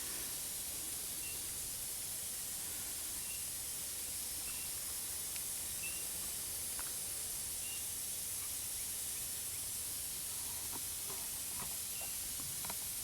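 Steady high hiss of background noise, with faint short chirps about once a second and a few faint taps near the end.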